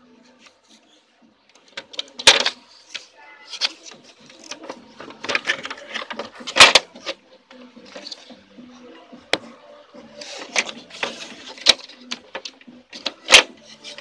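Plastic parts of a Brother DCP-T310 inkjet printer being handled during disassembly: irregular clicks, knocks and scraping, with sharp knocks about two seconds in, near the middle and near the end.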